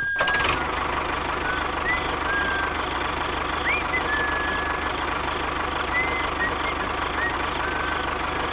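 Tractor engine running steadily with an even, fast chug, with short high chirps now and then over it.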